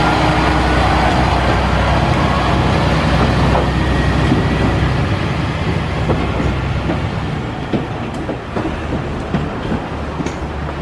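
Single-car diesel railcar pulling away and into the distance: its engine running and its wheels rolling on the rails, fading steadily. From about halfway in, the wheels click sharply over rail joints and points.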